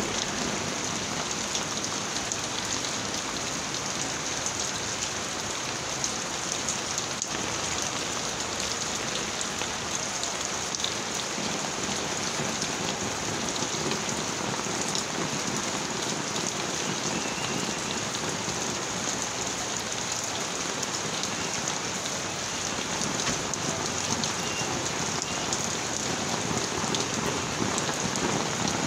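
Steady rain falling on small container ponds, drops splashing onto the water surfaces and the ground around them in an even, unbroken noise.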